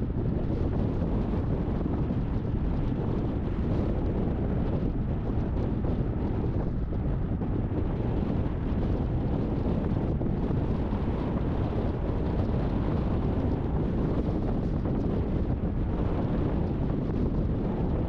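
Storm wind buffeting the microphone: a steady, low rumbling wind noise with no distinct events.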